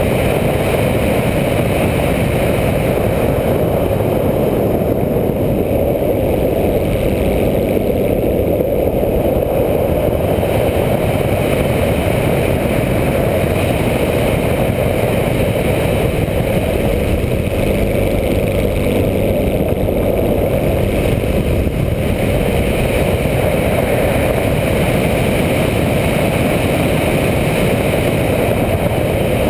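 Radio-controlled model plane's motor and propeller running steadily in flight with wind rush, heard from a camera mounted on the plane itself; the level and pitch hold even throughout.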